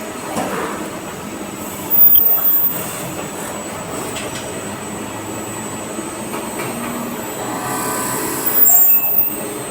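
CNC machine running while machining zinc-alloy (zamac) parts: a steady mechanical noise with a thin high whine, and two louder, brief bursts, about two seconds in and near the end.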